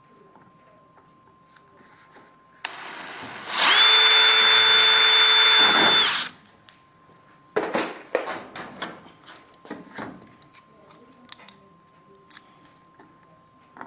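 Power drill boring a hole through thin aluminium wing skin and stiffener: it starts softly, runs at full speed for about two and a half seconds with a steady high whine, and stops suddenly. Afterwards come a run of sharp metallic clicks and clatter as clecos are handled and set with cleco pliers.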